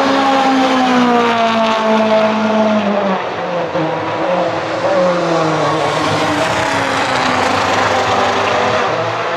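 Ford Fiesta WRC rally car's 1.6-litre turbocharged four-cylinder engine driving past and away at speed. The engine note falls over the first few seconds, then rises again about five seconds in as it accelerates.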